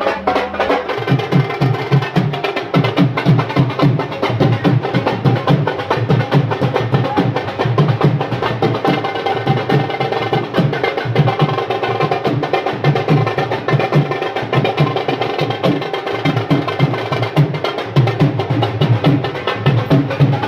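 Loud music driven by a steady, fast percussion beat.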